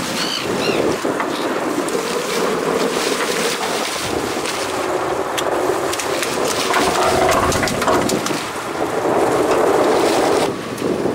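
Wind buffeting the microphone over steady sea noise aboard a small fishing boat, with a few light knocks.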